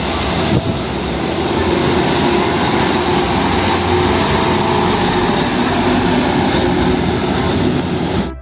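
Heavy diesel dump truck driving along a wet road: a steady engine drone mixed with the hiss of tyres on the wet surface, cutting off suddenly near the end.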